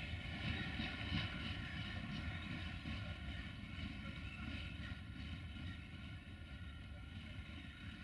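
Diesel locomotive moving during shunting: a steady engine drone over rail rumble, fading gradually as it draws away.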